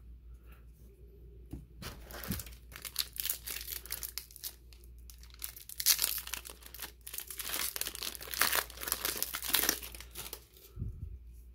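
A foil trading-card booster pack wrapper being crinkled and torn open by hand. The crackling starts about two seconds in and goes on for about eight seconds, loudest partway through and again near the end.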